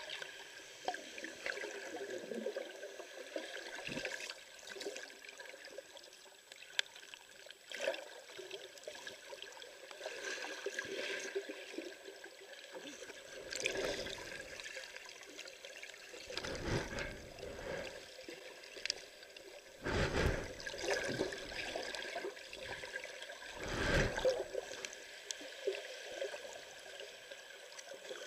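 Muffled underwater water noise picked up by a camera held below the surface: a steady wash with faint crackling, and three louder swooshes of moving water in the second half.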